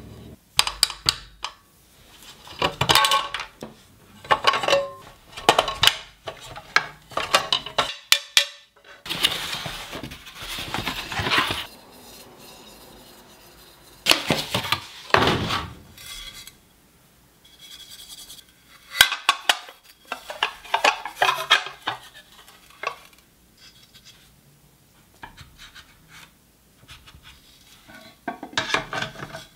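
Nonstick cooking plates of a Black+Decker 3-in-1 waffle, grill and sandwich maker being handled: irregular clacks, taps and scrapes of the plates, with the rustle of cardboard packaging, broken by short pauses.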